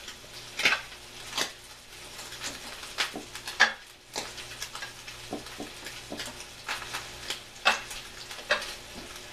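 Cubed pancetta sizzling steadily in a sauté pan, with scattered sharp clicks of metal tongs against a plate and a stainless steel bowl as sea scallops are moved into seasoned flour.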